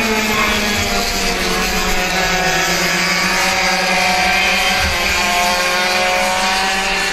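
Two-stroke racing kart engines running at high revs as a few karts go by, several engine notes drifting up and down in pitch together.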